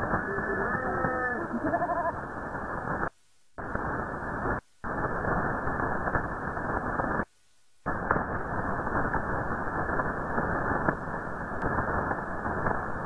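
Shortwave radio received in lower sideband through a web SDR on 6660 kHz: strange warbling, animal-like cries in the first second or two, then a steady rush of static. The signal cuts out to near silence three times, about three, four and a half and seven seconds in.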